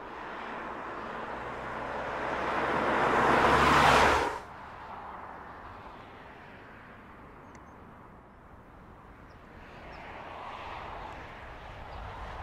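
A 2015 Mazda 6 driving by on a road: engine and tyre noise build as it approaches and cut off suddenly about four seconds in, then a second, quieter pass-by swells near the end.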